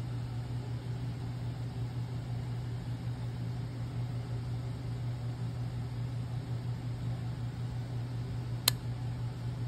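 Steady low hum in the background, and one short sharp click near the end as the grease-packed ball-joint socket of a Triumph TR6 throttle linkage rod is pressed onto its ball stud.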